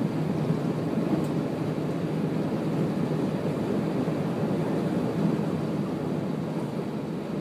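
A vehicle driving steadily through shallow floodwater on a road: a continuous low rumble of the motor mixed with water churning and washing under it.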